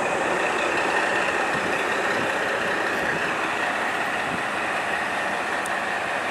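A pair of coupled KiHa 40 diesel railcars idling at a standstill: a steady engine drone with a hissing edge that does not change.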